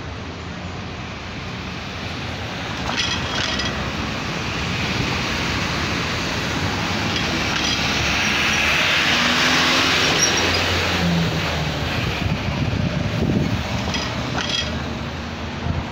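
Road traffic passing close at an intersection: engines and tyre noise. The sound swells to its loudest about halfway through as a large vehicle goes by, and a car passes close again near the end.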